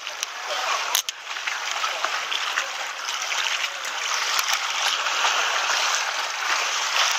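Sea water washing and gurgling over shoreline rocks: a steady hiss of surf, with a few small clicks.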